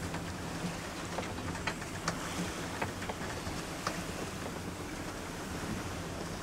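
Wind and water rushing past a Colvic Victor 34 sailing yacht under way in choppy water, with a steady low hum underneath and scattered sharp ticks and slaps.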